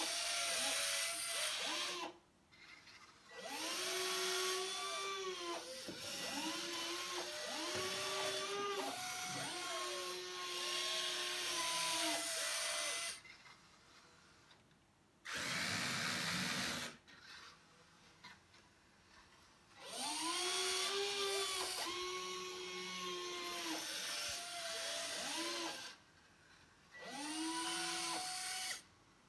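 Electric servo motors of an RC Volvo EC160E excavator whining in bursts of a few seconds as the boom, arm and bucket move, the pitch rising and falling with the load, with short pauses between moves. About fifteen seconds in, a shorter, rougher motor burst stands apart from the servo whine.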